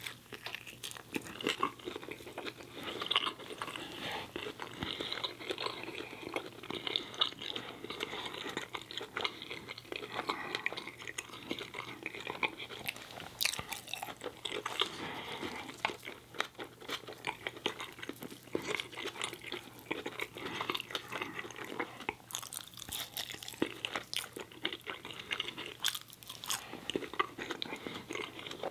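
A person chewing and biting into a bacon cheese hot dog and fries, with many short wet smacks and clicks of the mouth.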